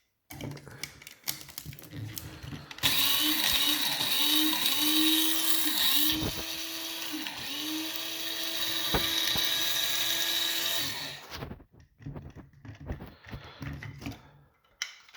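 Electric coffee grinder's motor running for about eight seconds, grinding coffee beans a second time for a finer grind. Its pitch dips again and again as the beans are thrown about, then steadies. There are clicks and handling noises from the grinder before and after.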